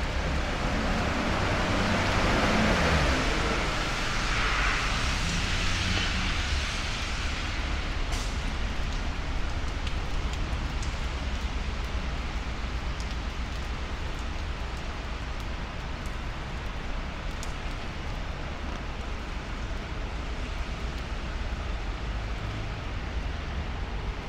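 Rainy city street traffic: steady tyre hiss of cars on wet pavement over a low engine rumble, with a vehicle passing close by in the first few seconds, its sound falling in pitch as it goes.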